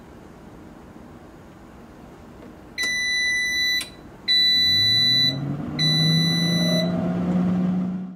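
Instant Vortex Pro air fryer oven beeping three times, each a long beep of about a second, as it starts preheating. Under the last two beeps its fan starts up with a low hum that rises in pitch and then holds steady.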